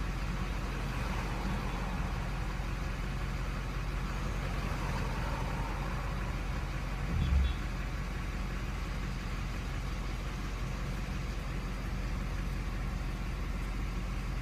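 Turbo-diesel truck engine idling steadily, heard from inside the cab while stopped. A single brief low thump comes about seven seconds in.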